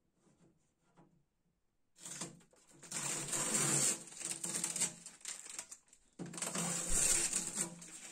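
Masking tape being peeled off a surface with a dense crackling rasp, in two long pulls: the first starts about two seconds in, the second about six seconds in.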